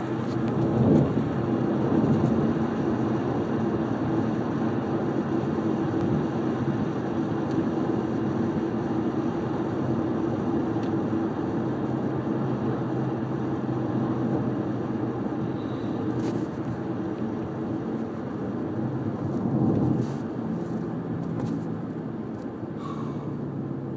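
Steady road noise of a moving car heard from inside: tyre and engine drone with a low hum, swelling briefly about a second in and again near the end.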